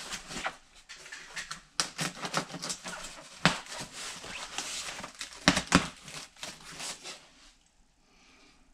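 A cardboard box being opened by hand: tape and flaps pulled apart, with crackling, rustling and sharp snaps of cardboard, the loudest snaps about three and a half and five and a half seconds in. It dies down about seven seconds in.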